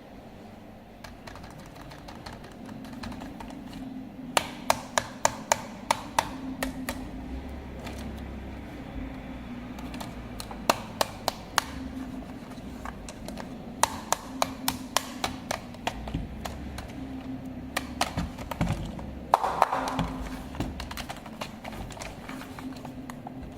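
Small electric RC car running, its motor giving a steady low hum that comes and goes, with four spells of rapid sharp clicking and clattering.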